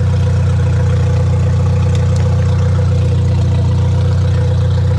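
Car engine idling loudly and steadily with its catalytic converter missing, so the exhaust is unmuffled: a constant low rumble with a steady hum above it, loud enough to drown out a voice.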